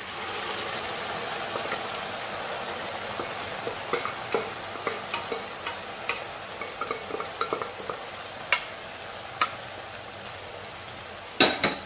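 Hot pan of fried onions sizzling as pressure-cooked beef, potatoes, carrots and their cooking liquid are poured in, then settling to a steady, slowly easing sizzle. Occasional light clicks of utensil on the pan, and a louder knock near the end.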